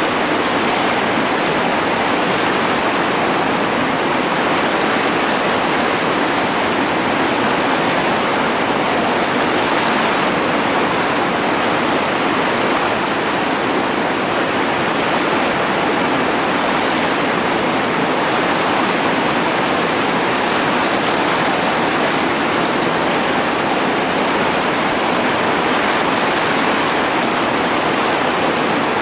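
Whitewater rapids pouring over and around boulders: a loud, steady rush of churning water with no let-up.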